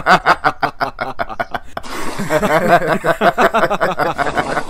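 People laughing in a rapid run of short pulses, about five or six a second, with more laughter and a hiss of background noise joining about two seconds in.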